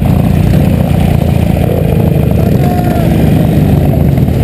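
Sidecar motorcycle's engine running loud with a steady low rumble, heard from on board as the outfit rides off across mud and snow.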